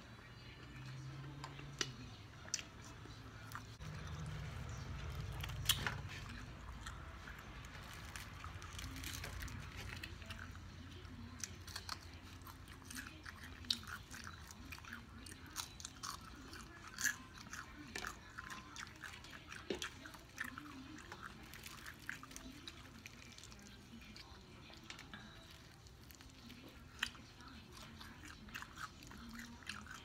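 Close-miked chewing and biting of fried perch, with scattered sharp crunches and mouth clicks. A low rumble sits under it for several seconds, from about four to ten seconds in.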